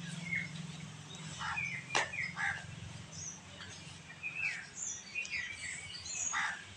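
Birds chirping in short, scattered calls over a steady low hum, with one sharp click about two seconds in.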